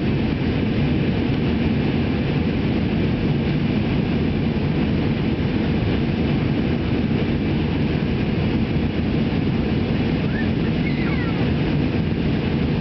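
Steady rushing cabin noise of a jet airliner in flight, jet engines and airflow heard from a seat beside the wing. A couple of faint short gliding sounds come in about ten seconds in.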